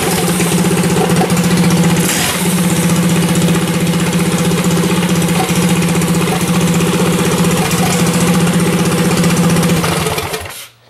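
Briggs & Stratton single-cylinder mini bike engine running at a steady idle, then shutting off near the end.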